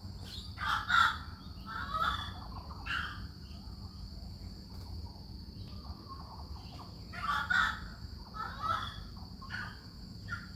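Orange-footed scrubfowl calling: loud, chicken-like cackling calls in two bouts, several in the first three seconds and more from about seven seconds in. A steady high-pitched drone runs behind them.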